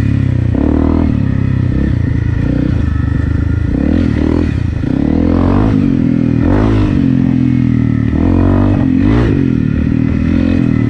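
Honda CRF250 Rally's single-cylinder engine, fitted with an FMF PowerCore 4 exhaust, running under throttle on a dirt trail. The revs rise and fall several times as the throttle is worked.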